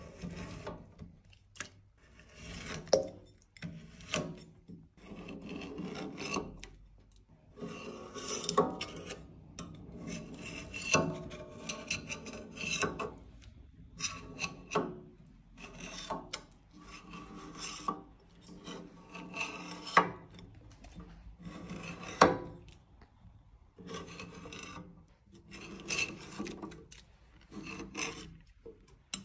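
Metal scraper blade scraping thick built-up candle wax off a wooden frame, in repeated rasping strokes about a second apart, with a few sharper knocks among them.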